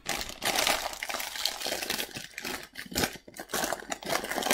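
Hula Hoops crisp packet being pulled open and handled, its plastic film crinkling and crackling unevenly as hoops are taken out.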